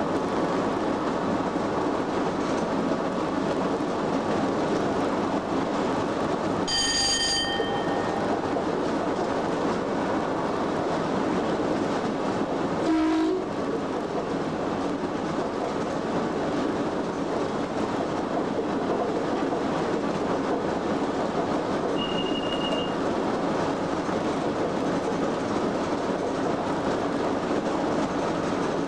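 Steady running noise inside the cab of Class 87 electric locomotive 87033 travelling at speed, mostly wheels on rails. A short ringing tone sounds about seven seconds in, a brief knock about thirteen seconds in, and a short high beep a little after twenty seconds.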